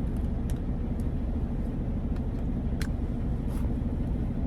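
Steady low rumble of an idling truck engine heard inside the cab, with a few light clicks of a spoon against a food container as green beans and corn are stirred together.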